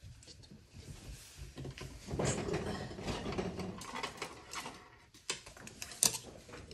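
Light clicks and rattles of kitchen handling, with a denser stretch of rustling noise in the middle and a few sharp clicks near the end.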